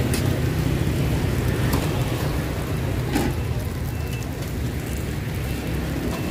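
Steady low rumble of street traffic, with scattered light clicks and clatter.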